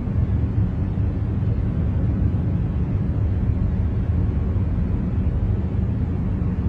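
Continuous 'white noise' concentration track: a steady, deep rumbling noise, heaviest in the low bass, with no changes or separate sounds in it.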